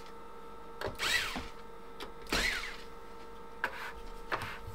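Small electric screwdriver driving screws in short bursts, its motor whine rising and falling in pitch twice, followed by two light clicks near the end, over a faint steady electrical hum.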